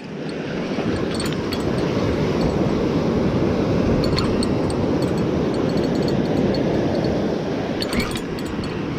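Ocean surf washing onto a sand beach, a steady loud rush that swells over the first second, with a few faint clicks.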